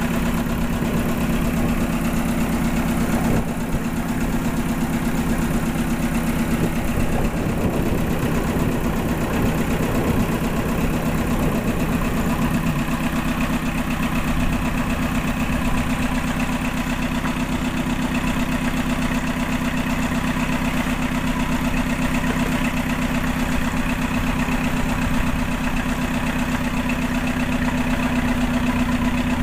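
A wooden fishing boat's engine running steadily under way, with a constant low drone.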